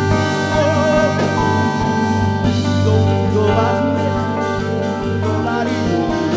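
Live jazz band playing: soprano saxophone with keyboards, electric bass and drum kit, over a sustained low bass line.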